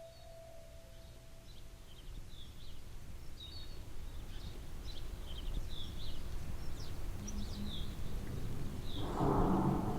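Small birds chirping in short, scattered calls over a low outdoor rumble that grows steadily louder, with a louder noisy swell near the end.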